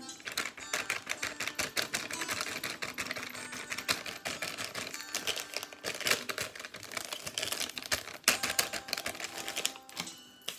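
Plastic packet of icing mix crinkling and rustling as it is shaken and squeezed empty over a mixing bowl: a dense, fast, irregular crackle.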